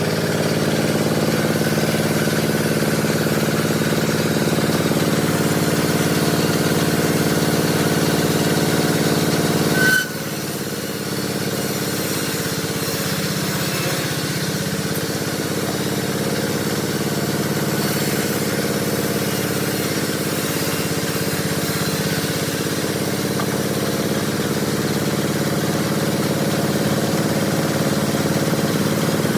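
Sawmill engine running steadily. About ten seconds in there is a sharp click and the sound abruptly drops a little and changes.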